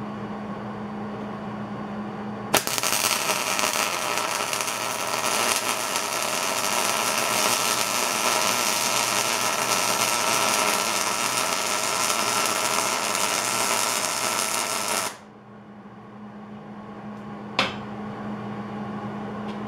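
A MIG welder's arc crackles steadily for about twelve and a half seconds as a weld is run on a steel tab. It starts with a sharp click about two and a half seconds in and cuts off abruptly. A steady hum sounds before and after the weld, and there is one more sharp click near the end.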